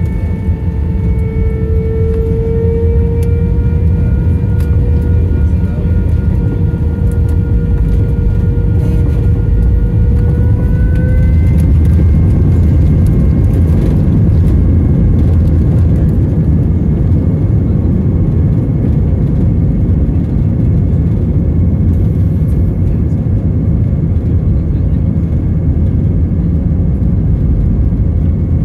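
Airbus A320 jet engines running at high power for take-off: a whine with overtones that rises slightly in pitch over about the first ten seconds and then holds steady, over a deep steady rumble.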